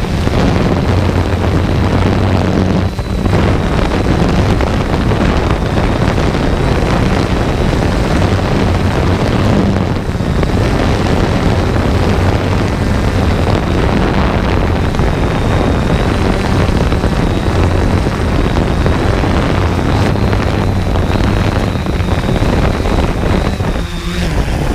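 Drone's propellers and motors buzzing steadily, heard close up from the camera on board, with a thin high whine above a low hum and wind rushing over the microphone. Near the end the sound dips and changes as the drone comes down to the ground.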